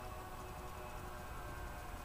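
Distant hum of a radio-controlled B-17 Flying Fortress model's electric motors and propellers in flight: a steady drone of several held tones, with a low rumble underneath.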